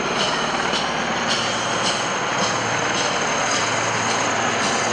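Helicopter flying overhead, a loud, steady rotor and engine noise.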